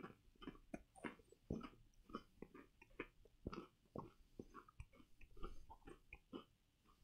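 A person chewing a mouthful of crunchy takoyaki-flavoured rice crackers, with quick, irregular crunches.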